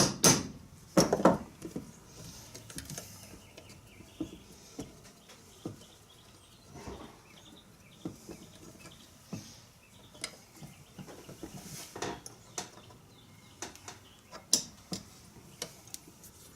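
Hammer striking a pin punch to drive a tight pin out of a metal animatronic head frame: two hard blows near the start, then scattered lighter taps and metal clinks.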